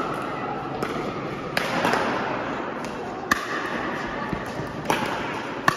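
Pickleball paddles striking a plastic pickleball during a rally: five sharp pops roughly a second apart, the loudest about three seconds in and near the end, over a murmur of voices in a large hall.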